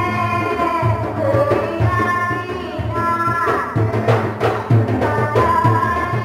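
Live Sarawak Malay bermukun music: a wavering melody over hand drums beating a steady rhythm, with a run of sharper drum strokes about midway.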